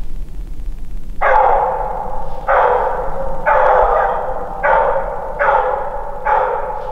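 Walker coonhound baying: six long drawn-out bawls about a second apart, the hound giving mouth on a raccoon's track.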